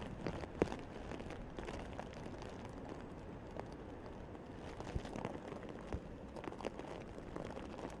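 Steady rumble of typhoon wind and heavy surf breaking against a harbour seawall, with scattered sharp knocks, the loudest about half a second in.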